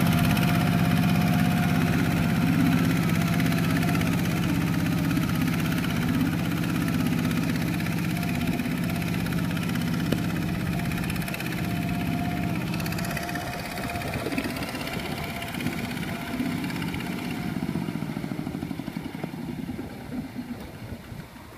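Kubota RT120 walking tractor's single-cylinder diesel engine running steadily under load as its cage wheels churn through paddy mud, fading gradually as it moves away.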